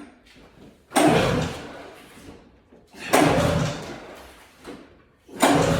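Three hard pulls on the recoil starter of a 1996 Arctic Cat ZRT 600 snowmobile's three-cylinder two-stroke engine, about two seconds apart: each time the rope rasps out and the engine turns over briefly without starting.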